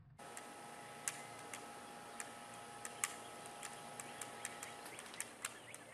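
Faint outdoor ambience with scattered sharp ticks, about one or two a second, over a thin steady whine that stops about five seconds in.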